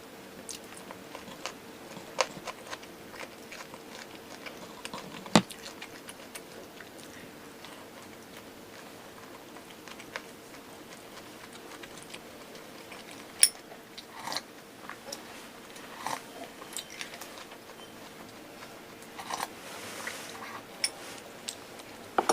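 Close-miked eating: chewing and biting food, with scattered sharp clicks and crunches and two louder clicks, over a faint steady hum that stops near the end.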